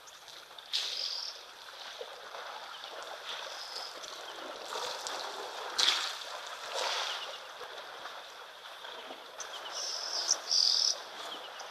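Water sloshing and splashing as Cape buffalo wade into a shallow waterhole, with a few louder splashes. Birds chirp throughout, more strongly near the end.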